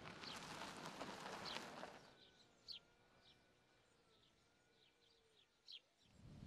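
Faint birds chirping, a few short high calls spread over several seconds over quiet outdoor ambience. This follows a steady rushing noise in the first two seconds that stops abruptly.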